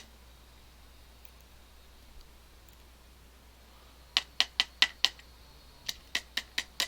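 Two quick runs of sharp taps, about five a second, the first about four seconds in and the second near the end: the lock housing is being rapped to shake a stuck driver spring out of its pin chamber.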